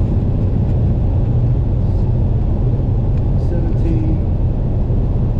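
Steady in-cabin rumble of a car driving on the highway: engine and tyre noise heard from inside the car, deep and even throughout.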